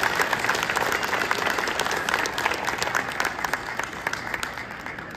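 Audience applauding after a choir song, a dense patter of many hands clapping that fades away near the end.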